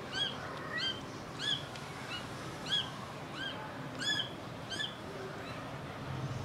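Young Persian kittens mewing: a steady series of short, high-pitched mews, about one and a half a second, that stop about five seconds in.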